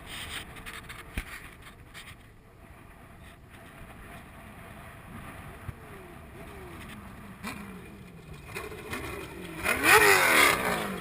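Class 1 off-road desert race car's engine approaching, revving up and dropping back through several gear shifts. It grows loud in the last second or two as the car draws close.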